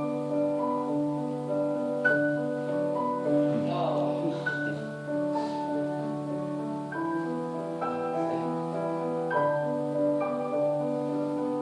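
Background music: slow, sustained keyboard or mallet-instrument notes changing every second or two.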